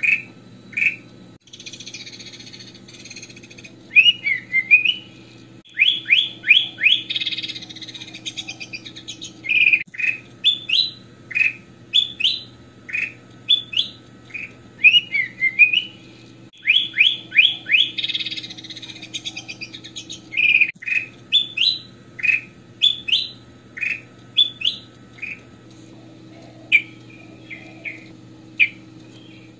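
Ruby-throated bulbul (kutilang emas) singing a lively, chattering song: quick runs of short rising chirps broken by brief buzzy trills, repeated again and again. A faint steady hum sits underneath.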